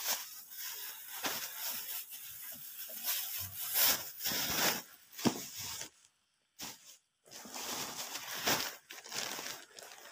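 Plastic carrier bags rustling and crinkling as they are handled, in uneven spells with two brief pauses about six and seven seconds in.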